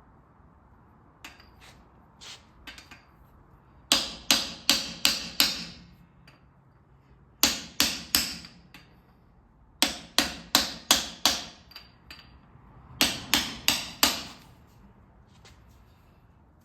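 Hammer blows on a screwdriver used as a drift, driving the differential carrier and its shims down into a Sterling 10.5 rear axle housing. A few light taps, then four quick volleys of four to six sharp, ringing metal-on-metal strikes.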